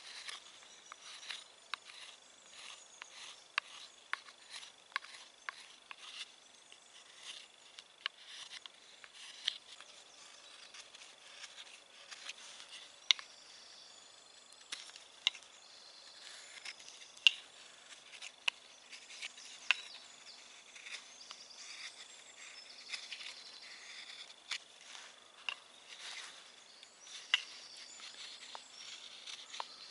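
Mora knife whittling a wooden sheath by hand: short, irregular cuts and scrapes of the blade on the wood, roughly one or two a second, some sharper than others.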